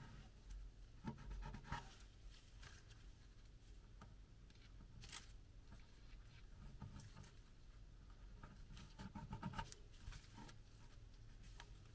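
Faint crinkling and rustling of paper being folded and creased by hand into an origami spider, in scattered short crackles, busiest about a second in and again near the end.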